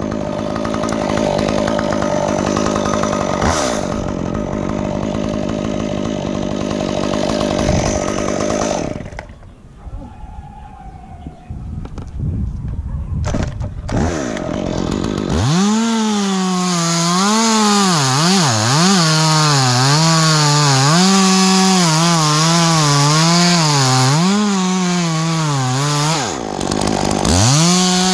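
Stihl chainsaw cutting pine limbs at full throttle. About nine seconds in it drops to a quieter idle with a few knocks, then it is opened up again and cuts, its engine pitch repeatedly sagging under load and recovering.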